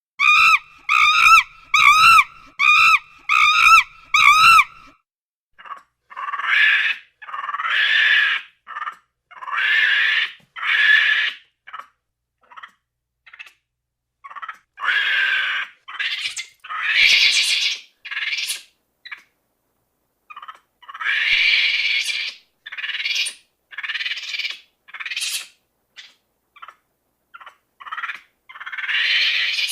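Monkey calls: first a quick run of short, wavering, pitched calls about half a second apart, then harsh screeching calls in bursts of about a second with short pauses between them.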